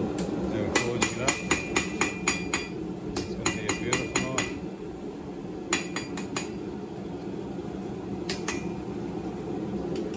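Blacksmith's hammer striking a red-hot carbon-steel railway-spike blade on an anvil, in quick runs of ringing blows about four a second: eight or so, a short pause, about seven more, then three or four, and a last pair near the end. A steady low rumble runs underneath.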